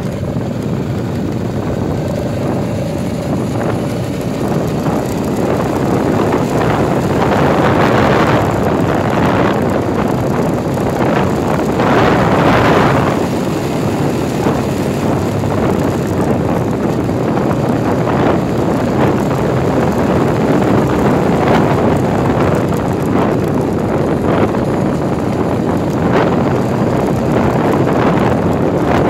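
Steady rushing wind on the microphone, with road noise from a vehicle moving at speed along a winding road. The rush swells loudest twice, about 8 and 12 seconds in.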